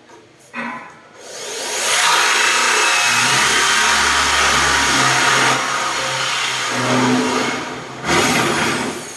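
Power drill running at high speed, boring the round cup hole for a concealed cabinet hinge into wood. It spins up about a second in, eases briefly midway, and stops near the end after one more short burst.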